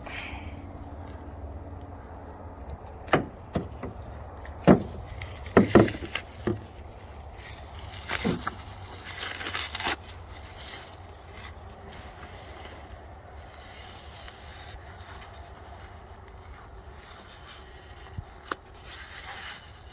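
Handling and unpacking of sawmill parts: a string of sharp knocks and clanks, most of them bunched in the first half, then scraping and rustling of packaging, with another rustle near the end.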